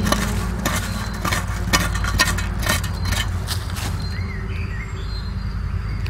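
Metal digging blade chopping and scraping into forest soil and leaf litter, about two strokes a second, stopping about four seconds in; a bird chirps after the digging stops.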